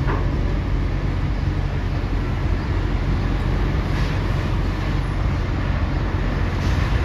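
Heavy diesel engines rumbling steadily at a constant low pitch, with no change in speed.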